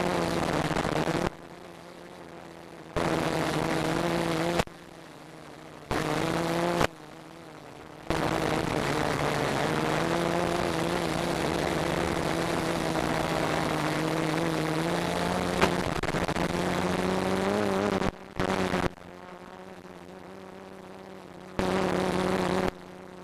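F450 quadcopter's brushless motors and propellers humming at a steady pitch, cutting out abruptly and coming back several times. The pitch rises a little shortly before the last dropouts, and there is one sharp click about two-thirds of the way through.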